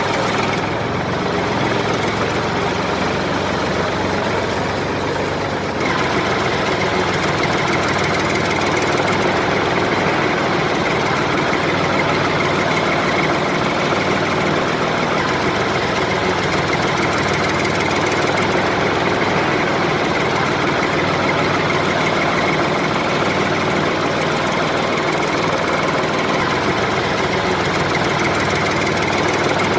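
Tractor engine running steadily, a little louder and brighter from about six seconds in.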